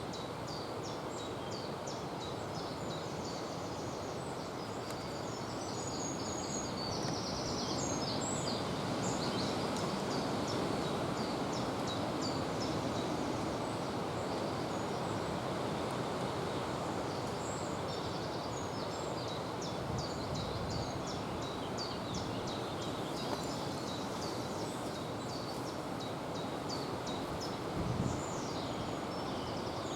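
Steady outdoor rustle and hiss, with small birds chirping in short, frequent high calls throughout, and one short low thump near the end.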